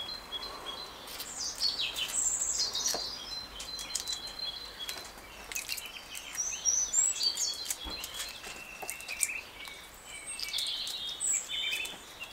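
Songbirds singing: repeated whistled and chirping phrases, loudest about two and seven seconds in. Under them, faint clicks of a soft-boiled duck egg's shell being peeled by hand.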